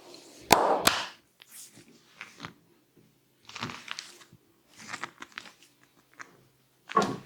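Hands working the hair and scalp during a head massage, with irregular crunching, crackling rustles close to the microphone. Two sharp clicks about half a second in are the loudest sounds.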